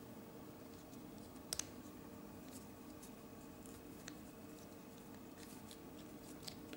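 Faint clicks and light handling of Lego Technic plastic parts being fitted together by hand. One sharper click comes about a second and a half in, with a few softer ones later, over a faint steady hum.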